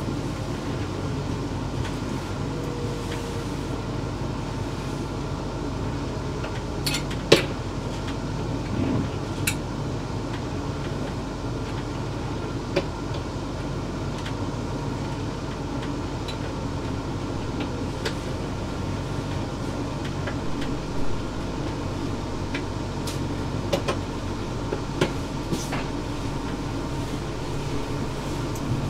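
Inside a Class 360 Siemens Desiro electric multiple unit, the carriage hums steadily with its motor and ventilation drone as the train slows to a stop at a station platform. A few sharp clicks and knocks come from the carriage.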